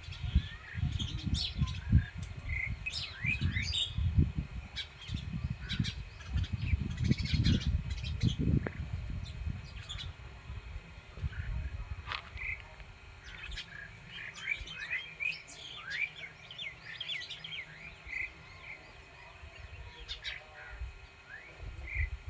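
Several birds chirping and calling in short, quick notes that glide up and down, scattered throughout. During about the first nine seconds, loud irregular low thuds and rumbling sit beneath the birdsong.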